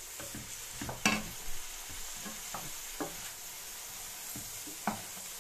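Mushrooms and vegetables sizzling in a non-stick pan as they are stirred with a wooden spoon, with a few sharp knocks of the spoon against the pan.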